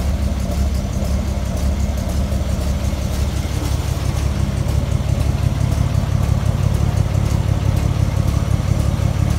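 1932 Chevrolet fire truck's six-cylinder engine idling steadily.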